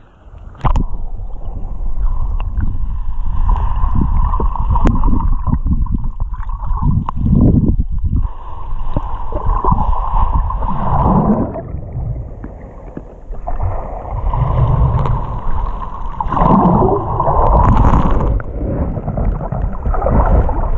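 Shallow surf churning and bubbling, heard from a camera held underwater: a muffled rumbling wash of water that swells and eases, quieter about twelve seconds in.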